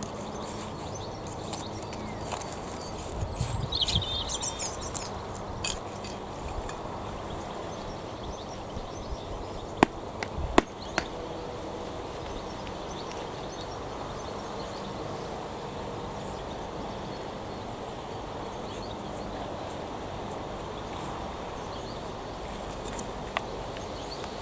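Steady outdoor background noise with wind on the microphone; a few seconds in, a short burst of bird chirps over a low rumble, and about ten seconds in, two sharp knocks.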